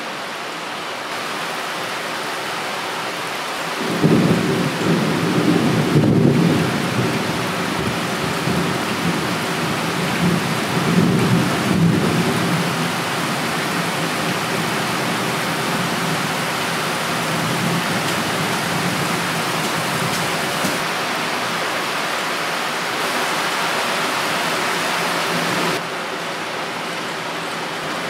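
Torrential typhoon rain pouring steadily, with distant thunder rumbling in about four seconds in and a second rumble a few seconds later, then fading back under the rain. The rain drops a little in level near the end.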